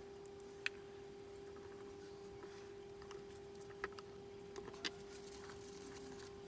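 A few faint, sharp clicks of pliers and pins against steel press plates as the pins are set in place, over a steady low hum.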